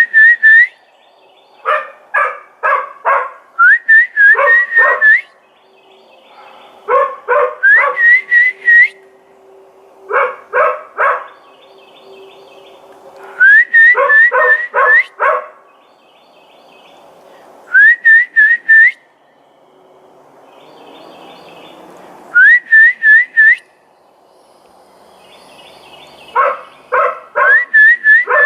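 A person whistling short phrases of four or five rising, bird-like notes, each answered by a dog barking in quick bursts of three or four. The two take turns throughout, the dog barking back at the whistling.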